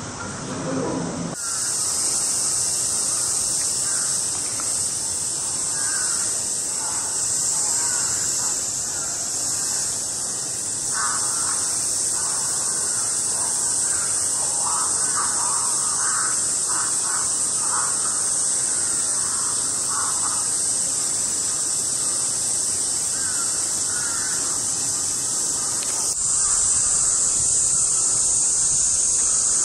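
Cicadas droning in a steady, high, shrill chorus that starts abruptly about a second in and grows louder near the end, with scattered short bird calls, likely crows, through the middle.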